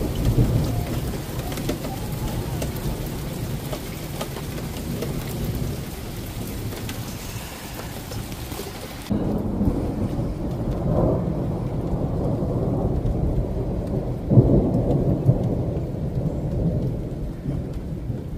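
Thunder rumbling over steady rain. About nine seconds in the rain's hiss drops away suddenly while the low rumbling goes on, and a louder peal of thunder comes about fourteen seconds in.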